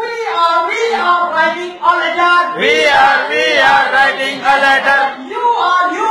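Song playing: singing voices with musical accompaniment.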